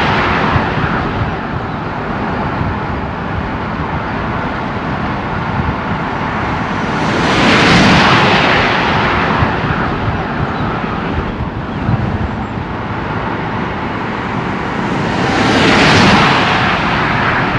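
Heavy wind rush and road noise in an open-top convertible at high motorway speed, swelling twice, about halfway through and near the end, as a Nissan Navara pickup drives close alongside.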